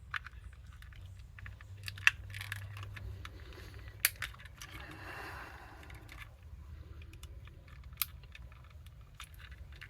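Small sharp clicks and taps of the plastic parts of a car's master window switch being pried and worked apart by hand, a few separate clicks with quiet handling noise between.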